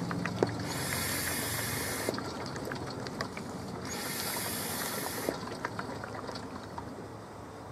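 Vacuum oil extractor sucking the last of the hot engine oil from a Briggs & Stratton lawn mower engine: crackling slurps of oil and air in the suction hose, with two hissing rushes of air of about a second and a half each.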